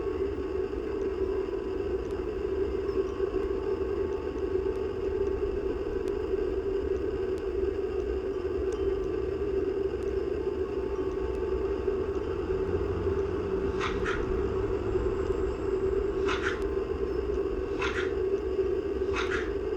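Breezy outdoor ambience: a steady low rumble and hum, with four short, sharp high chirps in the last third, spaced a second or two apart.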